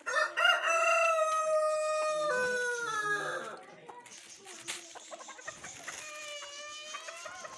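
Bantam rooster crowing: one loud crow of about three seconds, held steady and then falling away at the end, and a fainter second crow starting about six seconds in.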